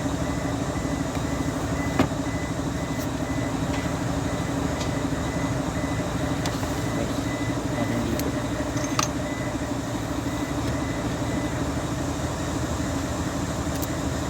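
Steady mechanical drone, with a sharp click about two seconds in and a lighter metallic click about nine seconds in.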